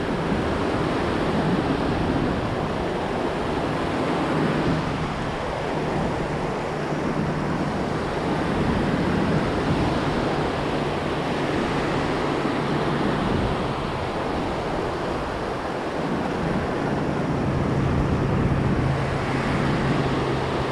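Ocean surf breaking and washing up the sand, a steady rushing with no distinct events. A faint low steady hum runs underneath for much of the time.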